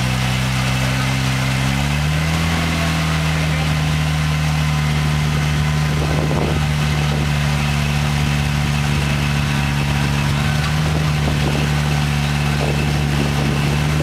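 Toyota pickup rock crawler's engine running at low throttle, stepping up a little in pitch about two seconds in and then holding steady.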